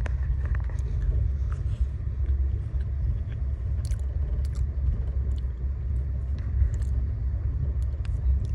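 Steady low rumble of a moving train, heard from inside the passenger coach, with faint scattered clicks and chewing as someone eats from a foil tray with a wooden spoon.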